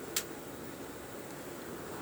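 Steady hiss of a ship cabin's air-handling unit, with one sharp knock from the unit about a fifth of a second in. This is the recurring nightly knocking that a repair did not cure.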